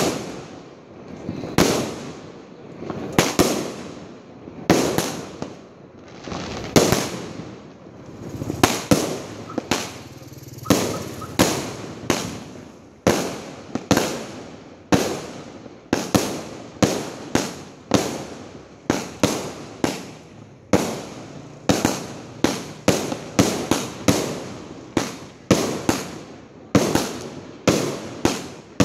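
A 250-shot fireworks cake firing shot after shot: sharp bangs, each with a rolling echo. They come about one every second and a half at first, then faster, nearly two a second, from about halfway through.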